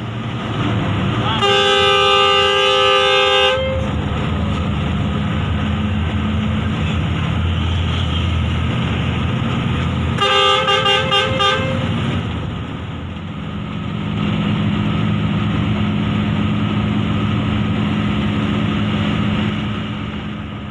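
Intercity bus's diesel engine running steadily, heard from the driver's cab. A long multi-tone horn blast comes about a second and a half in and lasts about two seconds. A shorter horn blast, sounded in quick pulses, comes about ten seconds in.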